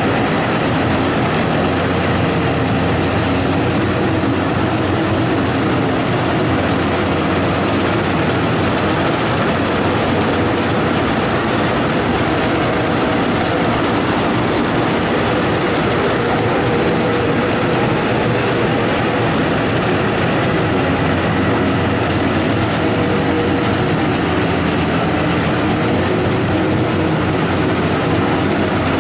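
Rice combine harvester running, a steady engine drone that holds an even level throughout.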